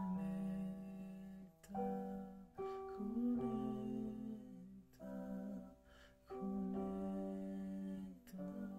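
Electronic keyboard playing slow held chords that change every second or two, with voices singing along.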